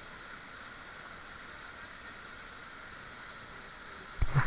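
Steady rushing of a waterfall, with a brief loud bump near the end.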